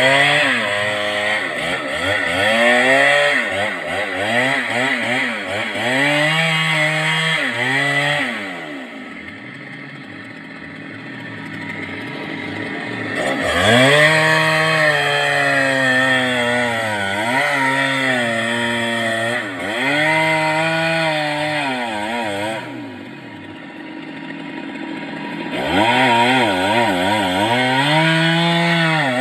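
Stihl MS 382 two-stroke chainsaw at full throttle cutting through wood, its engine note wavering up and down under load. Twice it eases off for a few seconds before revving back up into the cut.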